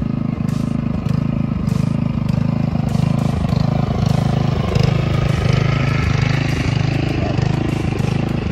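Small internal-combustion engine of a 10¼-inch gauge miniature locomotive running steadily as it hauls a wagon along the track, growing louder as it passes close about halfway through.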